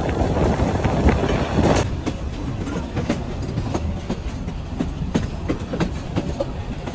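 Korotoa Express passenger train running on the rails, heard from on board: a steady rumble with wheels clicking over rail joints. It eases slightly after about two seconds.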